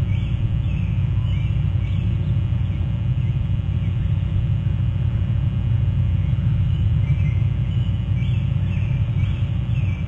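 Black oystercatchers calling with short, sharp piping whistles, in a cluster at the start and again from about seven seconds in, over a loud steady low rumble.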